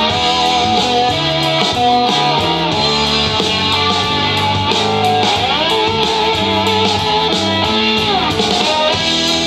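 Blues recording played back over the Marantz 1060 amplifier: electric guitar over a stepping bass line, with lead notes that bend up about halfway through and glide back down later.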